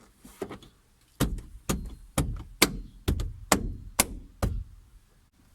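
A quick series of about eight sharp clunks, roughly two a second, from the freshly refitted rear seat belt of a 1989 Honda Civic as it is yanked to test that the retractor catches.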